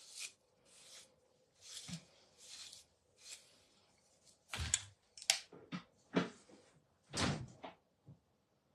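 Faint handling noise: soft rustles, then a cluster of light knocks and a couple of dull thuds about halfway through, as things are moved about.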